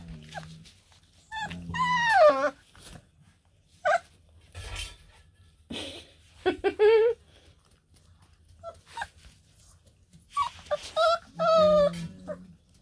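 Four-week-old black and tan coonhound puppies whining and yelping in play: several short cries that rise and fall in pitch, with a longer drawn-out cry near the end.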